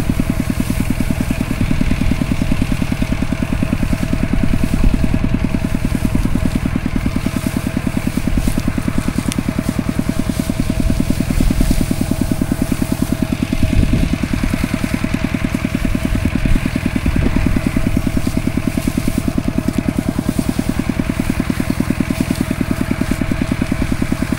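Farm tractor engine running steadily with an even, rapid beat, with a couple of brief knocks about fourteen and seventeen seconds in.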